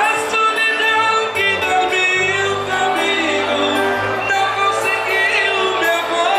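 Music with singing: a song with a voice carrying the melody over held bass notes.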